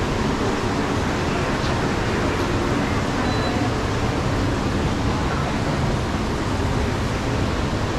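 Steady background din of a busy shopping mall: indistinct crowd chatter mixed into an even, wash-like noise.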